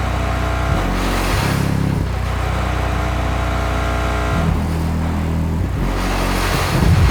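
Restored subwoofer playing a bass-heavy test track loudly: deep held bass notes that change pitch every second or so.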